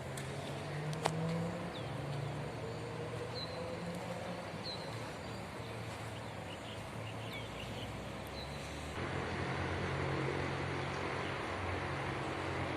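Long-reach excavator's diesel engine running steadily, with a single sharp click about a second in and a few faint bird chirps. The engine grows a little louder about nine seconds in.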